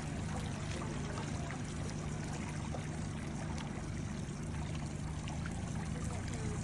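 Water splashing and trickling around a slow-moving boat, with a steady low hum from the boat's motor beneath it.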